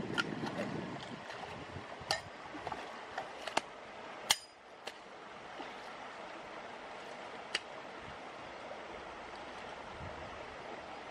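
Shallow stream running over rocks, with a few sharp clicks and knocks, the loudest about four seconds in.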